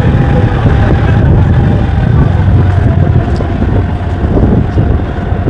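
Motor scooter running along a road, a steady low rumble with wind buffeting the camera's microphone.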